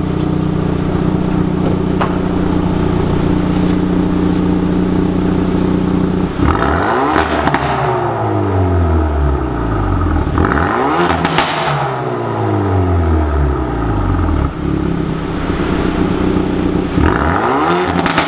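Hyundai i30 N's turbocharged four-cylinder, its particulate filter swapped for a dummy pipe, idles and is then blipped three times. Each rev climbs sharply and falls back slowly, with a sharp crack near the top of the first two, in an underground car park.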